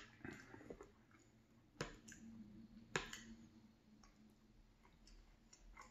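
Metal fork clicking sharply against a ceramic plate while spearing pieces of fried potato, a few separate clicks in the first three seconds.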